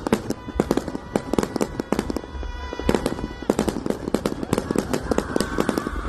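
Fireworks going off in rapid succession: many sharp pops and bangs a second, with whistling tones sounding over them around the middle and again near the end.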